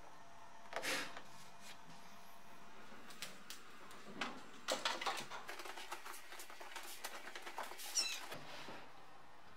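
Scattered clicks, taps and knocks of hard plastic dashboard parts being handled and fitted onto a BMW E30 dash frame, with a brief high squeak near the end.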